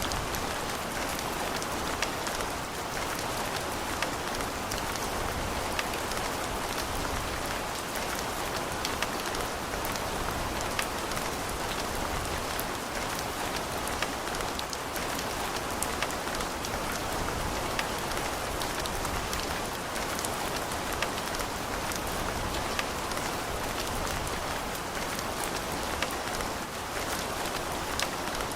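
Steady rain pattering on a surface, a dense even hiss with many separate drop ticks scattered through it.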